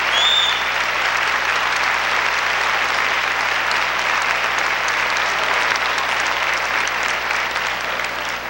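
Auditorium audience applauding steadily, with one brief high whistle near the start.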